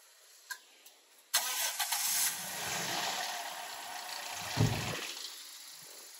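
Toyota Corolla Altis VVT-i petrol engine starting: it cranks and catches about a second and a half in and runs fast at first. It gives a brief low surge near the end, then settles to a quieter steady idle.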